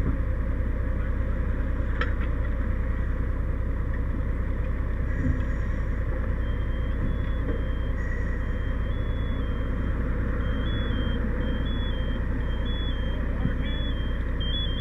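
Fire truck running with a steady engine and road rumble. About halfway through, a high electronic beep starts and repeats about once a second.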